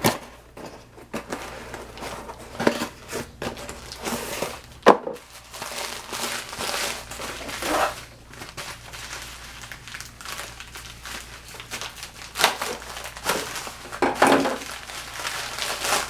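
Packaging crinkling and rustling as it is handled and opened, in irregular bursts, with one sharp click about five seconds in.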